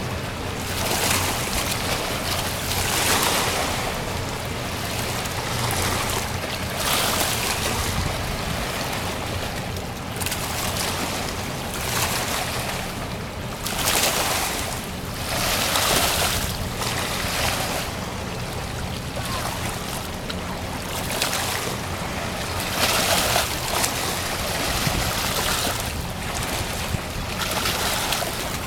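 Water rushing and splashing around the moving steamship Trillium, swelling in washes every second or two, over a steady low hum from the ship.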